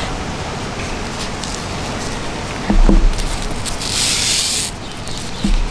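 Nylon webbing straps and plastic buckles of a backpack being handled: a low thump a little under three seconds in, then a short hissing rub of strap material about four seconds in, over steady background noise.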